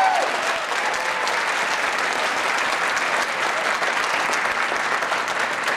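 Audience applauding steadily, many people clapping.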